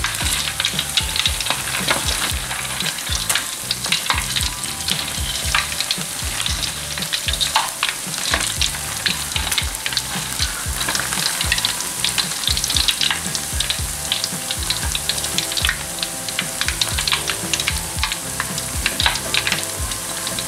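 Peyek (rice-flour and wet-anchovy crackers) sizzling and crackling steadily as they deep-fry in hot oil in an aluminium wok, with a slotted spatula stirring and pressing them in the oil.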